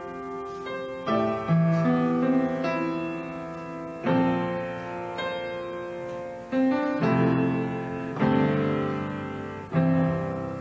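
Solo piano playing a slow church prelude: chords struck every second or two and left to ring and fade.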